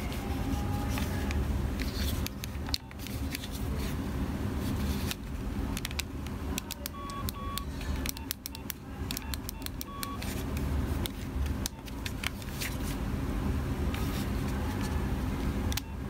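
Nokia 3300 keypad buttons clicking as they are pressed, with short beeps from the phone: two close together about seven seconds in and one about three seconds later. A steady low rumble runs underneath.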